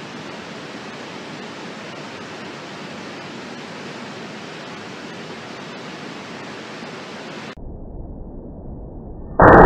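Steady, even hiss of background noise that cuts off abruptly to a low rumble near the end. A sudden, much louder, sustained low noise comes in just before the end.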